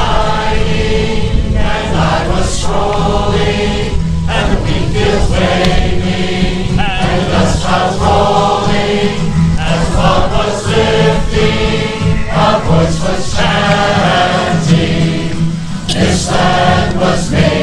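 Large mixed chorus singing together, accompanied by strummed acoustic guitars and upright double basses, with a steady low bass line under the voices.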